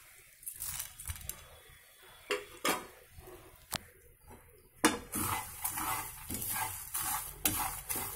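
A spoon stirring and scraping a dry mix of puffed rice, peanuts and roasted gram around a frying pan, the grains rattling against the pan. At first the strokes come sparsely; a little past halfway they turn into quick, steady, repeated scrapes.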